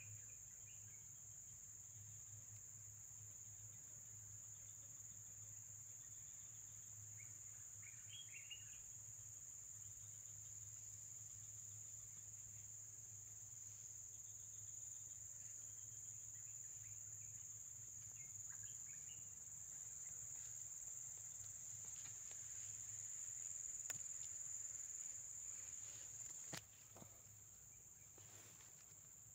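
Insects trilling in one steady, unbroken high-pitched drone, with a few short bird chirps now and then.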